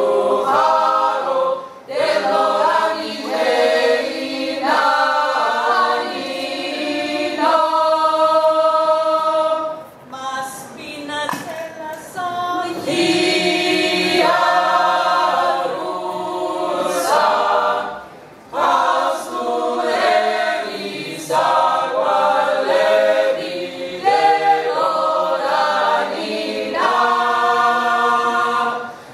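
Mixed men's and women's choir singing a Georgian table song a cappella in several parts, held chords in long phrases with short breaks for breath between them.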